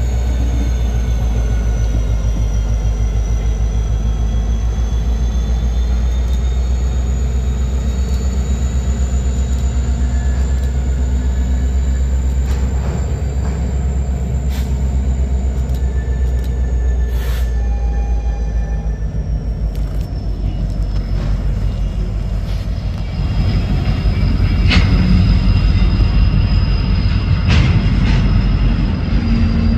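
EMD SD70M diesel-electric locomotive running at low speed as it moves a train of empty covered grain hoppers: a steady low engine rumble with wheel and car clatter and a thin high squeal that drifts in pitch. The sound grows louder about three-quarters of the way through.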